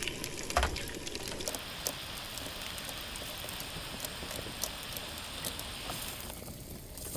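Food frying in oil in pans on a two-burner camp gas stove, an even sizzle that stops about six seconds in. A utensil knocks once under a second in, with a few small clicks as food is lifted out with a spatula.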